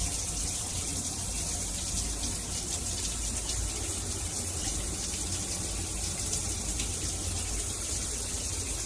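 Handheld shower head spraying water in a steady, even rush onto the surface below.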